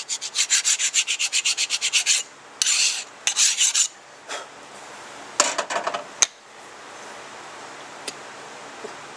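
Flat file rasping across the cast mating face of a Carter six-screw mechanical fuel pump housing, truing the surface flat: a quick run of short, even strokes, about seven a second, then two longer strokes and a few more. A sharp click comes about six seconds in.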